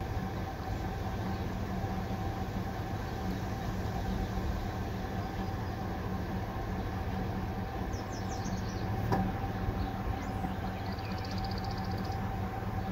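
A pickup truck's engine idling, a steady low hum with a faint steady higher tone above it. A single click comes about nine seconds in, and a few brief high chirps are heard around eight and eleven seconds in.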